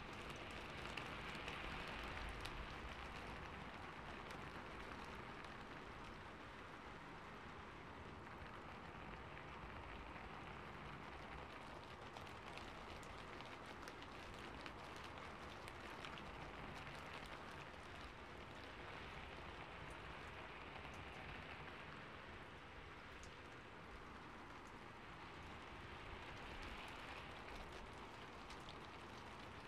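Soft, steady patter of rain, faint and even, with many small drop ticks and slight swells.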